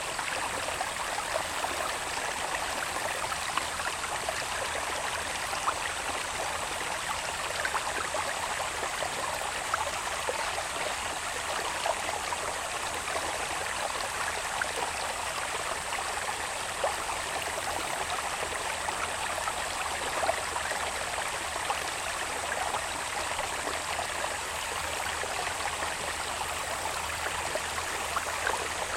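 Small irrigation channel of running water babbling steadily, with little splashes through it. A thin, steady, high-pitched insect drone runs underneath.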